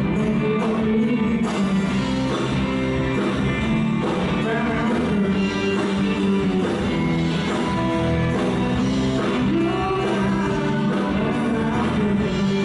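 Rock-style music with guitar and singing, playing steadily throughout.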